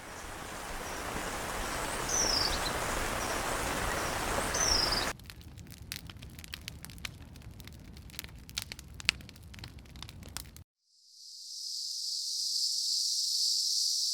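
Nature ambience recordings cut one after another. First a loud even rushing noise with two short falling bird chirps. At about five seconds it cuts to a quieter stretch of scattered crackles and clicks, and after a brief silence near eleven seconds a steady high-pitched hiss fades in.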